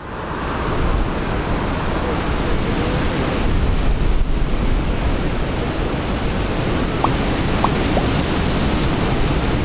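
Strong storm wind buffeting the microphone: a steady rushing noise with a heavy low rumble.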